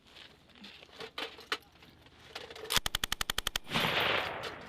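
M240B machine gun firing one short burst of about ten rounds in under a second, followed by about a second of rolling noise as the reports die away. A couple of faint clicks come before the burst.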